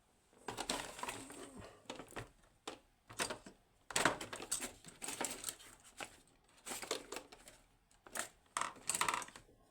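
Metal hand tools scraping, clicking and knocking irregularly against a machined steel padlock while it is pried and worked apart during disassembly.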